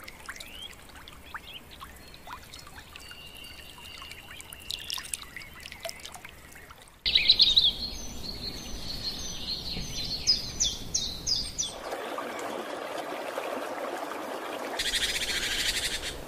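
Birds chirping over a faint trickle of water. About seven seconds in the sound steps up louder, with a bird giving a rapid series of short, repeated high notes. A steady rushing hiss follows near the end.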